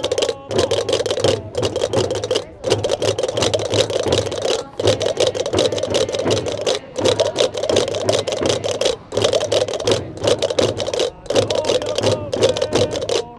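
Gomeran chácaras (large wooden castanets) clattering in fast continuous rolls, together with wooden frame drums (tambores) beaten with sticks in a steady rhythm. The playing breaks off briefly about every two seconds.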